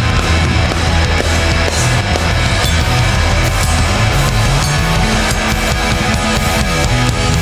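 Hardcore punk band playing live and loud: pounding drum kit, distorted electric guitars and bass.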